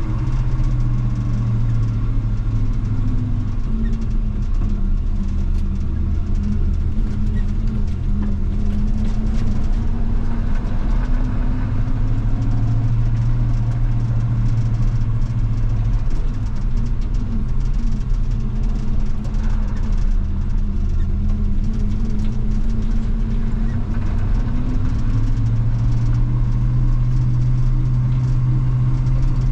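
1980 Chevy K20 pickup's engine running steadily, its pitch sagging and recovering slowly a few times.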